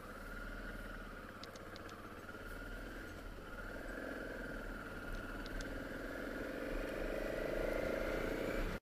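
BMW F650GS motorcycle engine pulling away and accelerating, getting steadily louder with its pitch rising near the end.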